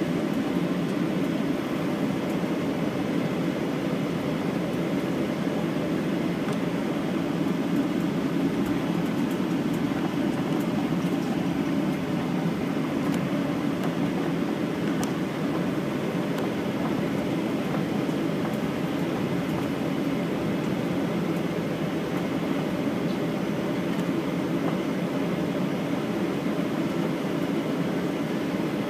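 Steady low rumble of cabin noise inside a Boeing 737-900ER airliner on the ground before takeoff, even and unbroken throughout.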